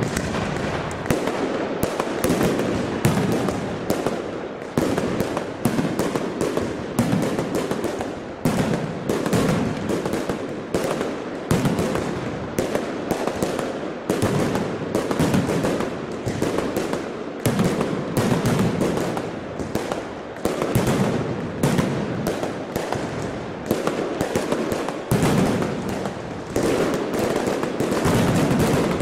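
Festival firecrackers going off in a rapid, continuous string: a dense crackle of bangs, with heavier bangs every second or two.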